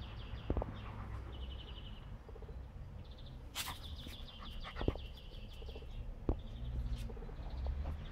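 Small birds singing rapid, trilling phrases again and again, with a few sharp clicks, a short scuffing burst about three and a half seconds in, and a low rumble underneath.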